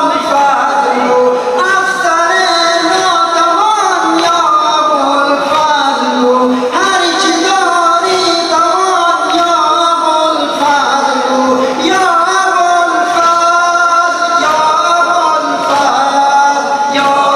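A male reciter singing a nawha, a Muharram mourning lament, into a microphone over the hall's sound system, in long held lines that waver and slide in pitch.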